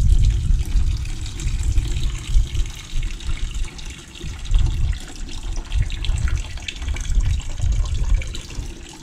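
Old green coolant pouring in a thin stream from the Benelli TRK 502X's radiator drain hole into a plastic bucket, over a low, uneven rumble.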